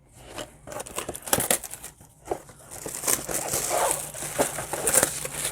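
Cellophane shrink-wrap on a trading-card hobby box crinkling and tearing as it is pulled off, a run of sharp crackles that gets busier about three seconds in.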